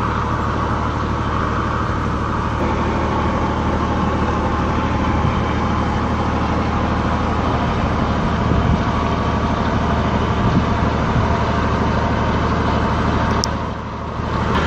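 Steady low machinery hum from a moored fishing ship, with an even wash of noise over it. The hum dips briefly near the end.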